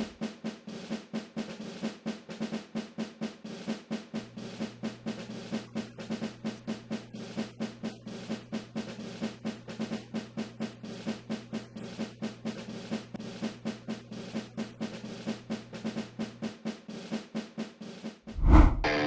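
Music bed of a steady snare-drum beat, about three strikes a second, over a held low tone. A louder burst comes near the end.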